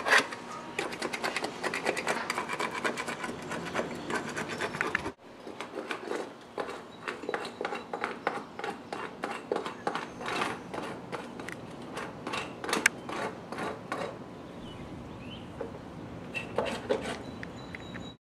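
Hand paint scraper rasping over painted wood trim in quick, repeated strokes. After a sudden break about five seconds in, lighter and more scattered scraping and rubbing strokes go on.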